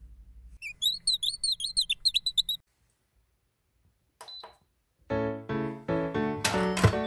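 A quick run of high chirps lasting about two seconds, then a single short electronic beep from an Instant Pot's control-panel button. Background keyboard music starts about five seconds in and is the loudest sound.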